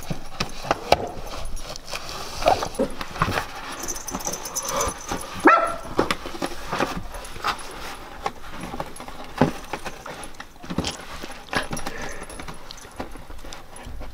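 Siberian husky ripping and chewing at a cardboard box with its teeth, the cardboard tearing and crackling in a run of sharp irregular snaps and scrapes. A short dog vocal sound cuts in about halfway through.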